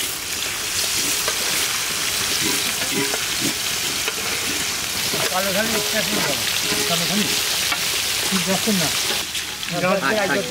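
Pieces of black pomfret deep-frying in hot oil in a large karahi: a steady, dense sizzle, with a spatula turning the fish at the start.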